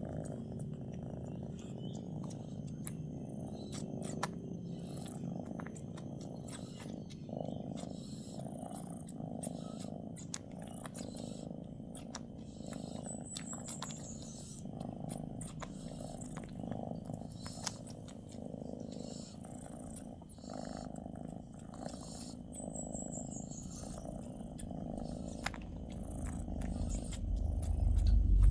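Cat purring at close range: a steady rumble that pulses with each breath, with a sleeping pregnant cat's soft snoring beneath it. A low rumble rises right at the end.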